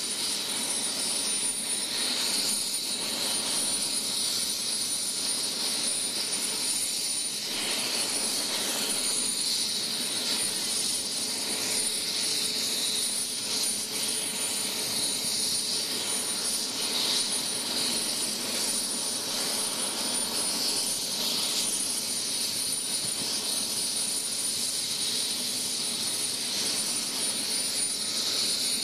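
Medical helicopter's turbine engine running steadily on the ground, with a constant high whine over the rush of the engine and rotor.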